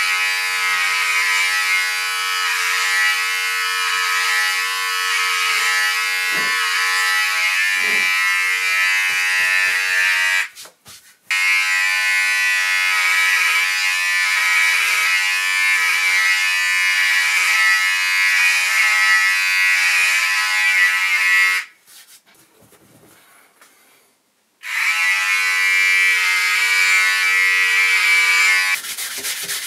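Electric hair trimmer buzzing steadily as it cuts hair close to the scalp. It breaks off for a moment about ten seconds in, falls silent for about three seconds past the twenty-second mark, then runs again until it stops shortly before the end, giving way to a rubbing sound.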